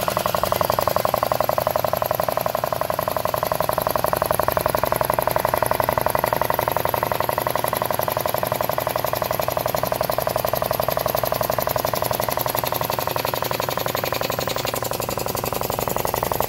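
Belt-driven piston air compressor running: an electric motor turns the pump, which beats out a fast, steady pulse of strokes as it pumps air into the tank.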